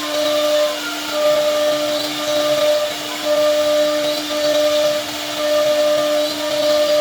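CNC router spindle running with a steady whine, a higher tone and louder cutting noise swelling in and dropping away about every two seconds as the bit works through wood.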